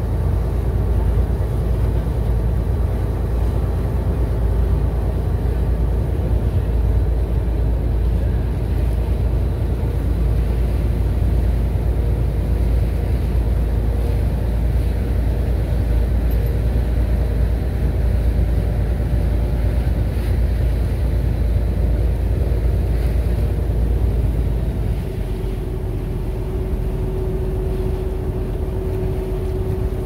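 A ferry's engine running with a steady low rumbling drone. About 25 seconds in it gets a little quieter and settles into a steadier hum, while the ferry nears the harbour breakwater.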